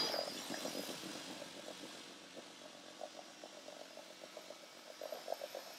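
Battery-powered Makita rotary brush sweeper running quietly, its electric motor humming as the bristles sweep loose snow off the rink ice.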